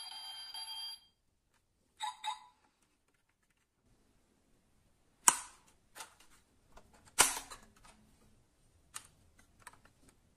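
A steady electronic tone cuts off about a second in. After a pause, sharp clicks and snaps of a diecast model SUV's opening doors and bonnet being worked by hand, with a few light taps between them.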